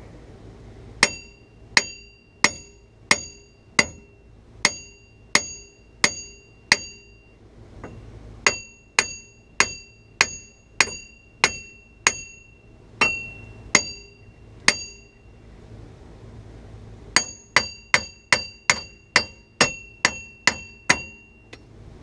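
Hammer blows on a seized steel front wheel hub assembly to knock it loose from the spindle. Each strike rings with a clear metallic tone. The blows come in three runs of about ten to a dozen, with two short pauses between, and the last run is quicker, about three a second.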